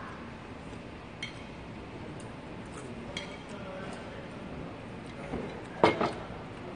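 A metal spoon clicking now and then against a bowl while eating, with one louder clink near the end, over a steady background hum.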